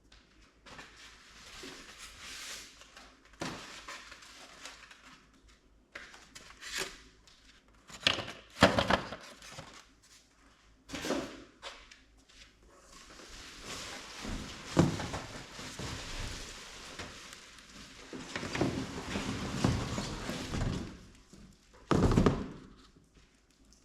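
Unboxing handling noises: cardboard and packing material rustling and scraping, broken by irregular dull thunks as the box and the air cooler's parts are moved and set down.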